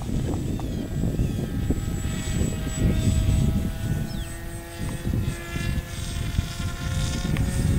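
Radio-controlled model airplane flying overhead at a distance, its motor and propeller a steady drone whose pitch sinks slowly, under a low rumble of wind on the microphone.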